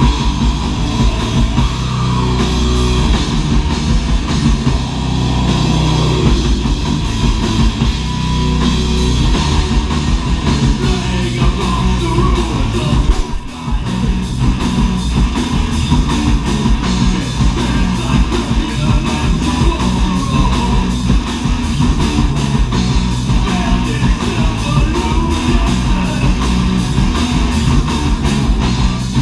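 Loud live metal band playing: distorted electric guitars, bass guitar and drum kit. About halfway through there is a brief break, after which the drums come back in with a rapid, steady beat.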